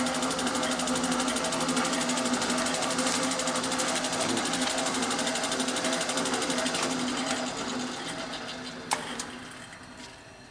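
EWAG RS2 radius and tangent grinder running with a rapid, even mechanical chatter over a steady hum, then switched off and winding down from about seven seconds in. A sharp click comes near the end.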